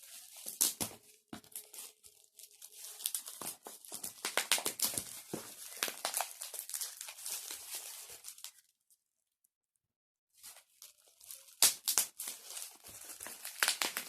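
Plastic packaging crinkling and tearing as a camera box is unwrapped by hand, in dense irregular crackles that stop for about a second and a half partway through, then resume.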